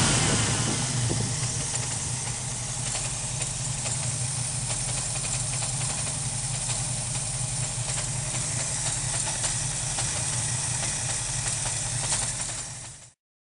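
Ford 302 V8 running with a constant misfire, settling down over the first couple of seconds to an uneven idle. The misfire comes from a bad distributor cap. The sound stops abruptly near the end.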